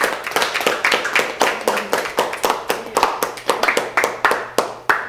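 A congregation clapping: a dense run of hand claps from many people that stops suddenly near the end, with faint voices underneath.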